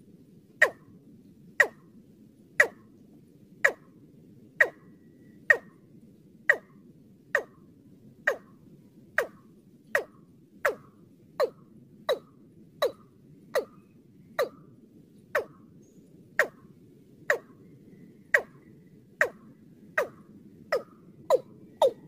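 Watercock (Gallicrex cinerea) calling: a long series of short, sharp notes, each dropping quickly in pitch, repeated about once a second and coming a little quicker near the end, over a faint steady hiss.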